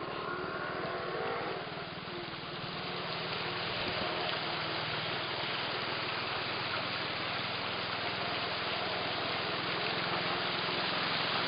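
An engine running steadily under a continuous wash of noise.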